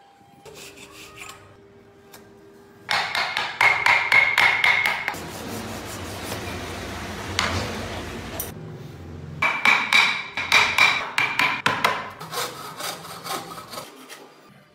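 Wooden-framed hand saw cutting a small block of wood with rapid back-and-forth strokes. The strokes come in two spells, about three seconds in and again about nine seconds in, with a steadier rasping stretch between them.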